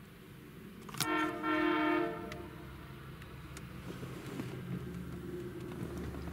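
Hi-rail weed-spraying truck on the railroad track sounds its horn once, a single blast of about a second starting about a second in, followed by a steady low engine rumble.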